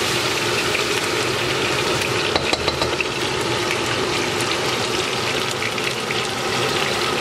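Potato strips with spices sizzling steadily in a saucepan in a splash of water, with a spoon stirring through them and a few crackles and scrapes in the first seconds.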